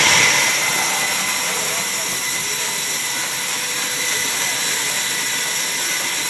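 Large sawmill band saw running and cutting as a heavy timber is pushed through the blade: a loud, even hiss with a few faint steady tones in it, a little louder in the first half second.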